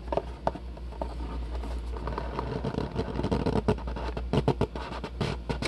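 Thick trading cards handled in the fingers and slid against each other: a run of small clicks and scrapes, with a steady low hum underneath.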